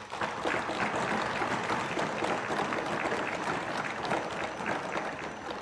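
A hall full of people applauding, a dense patter of many hands that starts suddenly and eases off near the end.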